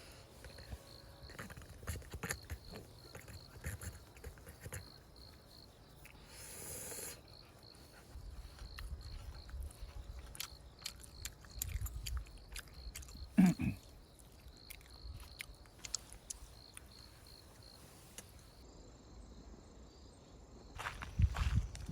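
Crickets chirping faintly in a steady pulsing row, with scattered clicks and knocks. There is one louder low thump with a falling pitch about halfway through, and a cluster of low knocks near the end.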